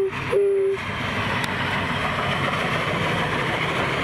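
Union Pacific 4014 Big Boy steam locomotive passing with its train, a steady loud rumble and hiss of the running train. Over it come two short, steady whistle toots in the first second.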